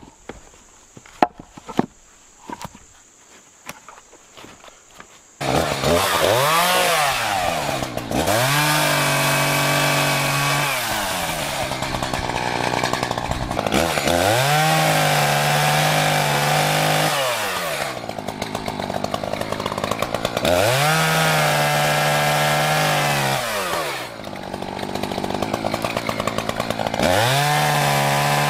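A few light knocks, then about five seconds in an Echo two-stroke chainsaw cuts in already running. It is revved up and held at full speed several times while cutting through a small log, dropping back toward idle between cuts.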